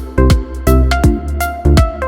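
Background music with a steady beat: deep, pitch-dropping bass drum hits, crisp percussion and a sustained bass line under melodic notes.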